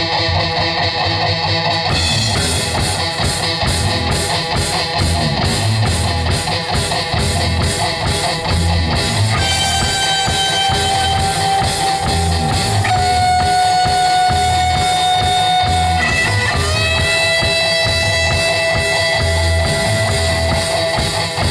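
Live rock band playing an instrumental intro on electric guitars and drum kit. The guitar starts alone and the drums come in about two seconds in; from about halfway long held high notes sound over the band, stepping down in pitch twice.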